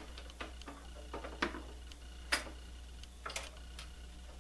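Light, irregular clicks and taps of plastic test probes being handled and set against a metal instrument chassis, about half a dozen in all, the sharpest a little past two seconds in, over a steady low hum.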